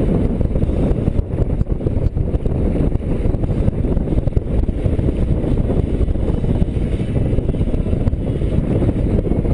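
Wind buffeting the camera's microphone aboard a small sailboat under sail: a loud, steady, low rumble that covers any other sound.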